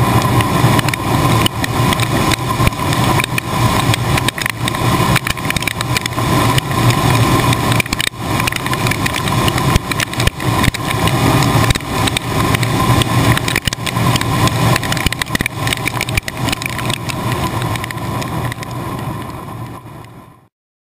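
Case IH 1680 combine's threshing section running at harvest: the rotor and grain augers turning, with a steady low hum, a steady whine, and a dense rattle of wheat, straw and chaff pelting the metal. The noise fades out near the end and stops.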